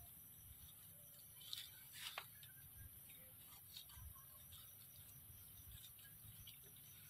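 Faint crinkling and rustling of a black plastic bag as a macaque rummages in it, with a few soft, sharp crinkles about one and a half and two seconds in, over a low rumble.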